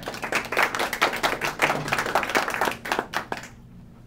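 Audience applauding with dense, fast clapping that dies away about three and a half seconds in.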